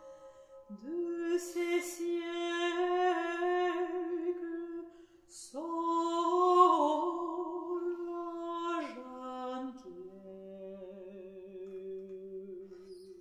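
A woman singing a French art song in classical style with vibrato, in long held phrases with a short break about five seconds in, accompanied quietly on a square piano.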